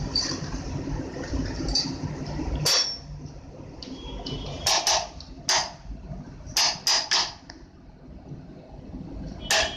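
Hammer tapping as part of sewing-machine repair work: sharp knocks, some single and some in quick pairs and threes, after a few seconds of steady rough noise.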